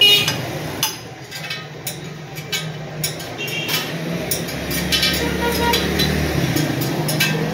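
Steel spokes of a chrome 72-spoke motorcycle wheel clicking and clinking, with short metallic rings, as they are adjusted by hand on a truing stand. Street traffic hums underneath, with a low rumble passing in the middle.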